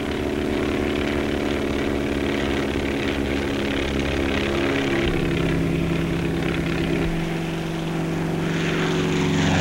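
Propeller engines of several biplanes droning steadily in flight, with a slight shift in pitch about halfway through and the drone starting to fall in pitch right at the end.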